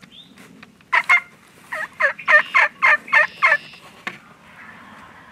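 Wild turkey calling: a loud run of about ten sharp notes over two and a half seconds, the last eight evenly spaced at about four a second.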